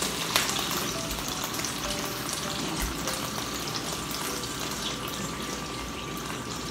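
Bottled bangus (milkfish) sardines sizzling in hot oil in a frying pan: a steady crackle with scattered small pops.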